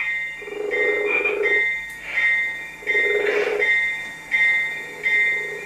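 Model train layout sound effects: a high electronic ding repeating about every 0.8 s, like a crossing bell, with a lower tone sounding three times for about a second each.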